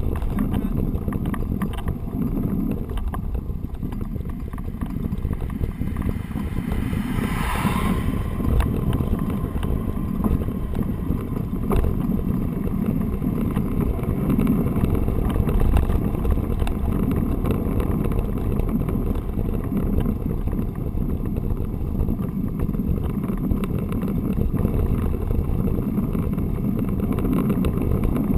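Wind buffeting the microphone of a bike-mounted action camera in its housing while a touring bicycle rolls along a paved road: a steady low rumble of wind and tyre noise, with a brief higher sweep about seven seconds in.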